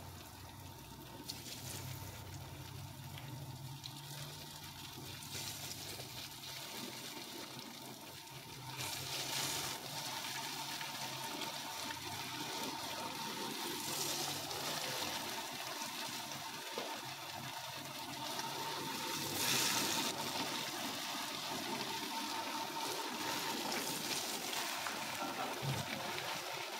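Batter-coated potato fries sizzling as they deep-fry in hot oil in a frying pan. The sizzle grows louder about nine seconds in and swells a few more times as more pieces are dropped into the oil.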